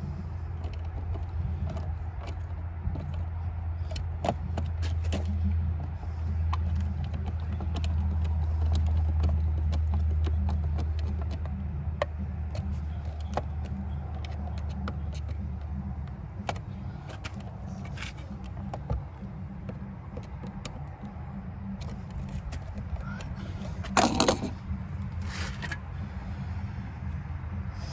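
Scattered small clicks and metal clinks of outlet-cover hardware being handled and screwed down, with a sharper clatter about 24 seconds in. Under them runs a steady low hum that stops about 16 seconds in.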